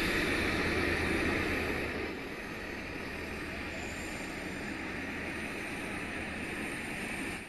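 Dassault Rafale fighter's jet engines running on the ground: a steady rushing noise that drops in level about two seconds in, then cuts off suddenly near the end.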